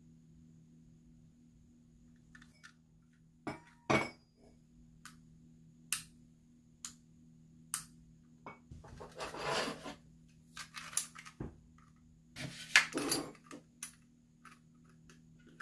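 Brass lamp socket and small metal fittings handled on a wooden table: scattered sharp clicks and clinks of metal parts, starting a few seconds in, with a brief rustle near the middle and a cluster of clinks near the end. A faint steady low hum lies underneath.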